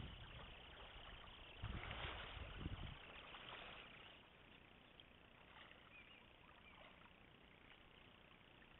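Faint, steady rush of river water, with a stretch of louder low rumbling about two seconds in.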